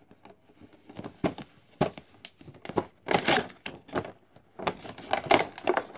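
Cardboard figure box and its clear plastic blister tray being handled and opened: irregular crinkles, scrapes and clicks, louder about three seconds in and again about five seconds in.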